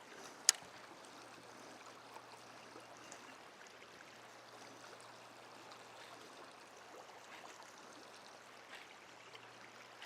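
Faint steady rush of flowing river water, with one sharp click about half a second in.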